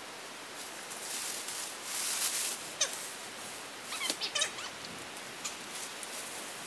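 Rustling of brush, then a quick run of short, high animal calls about four seconds in.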